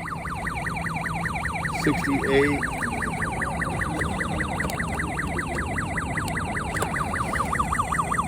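Homemade temperature alarm sounding a fast electronic siren warble, its tone sweeping rapidly up and down several times a second without a break. It was set off by the temperature crossing its 75-degree set point.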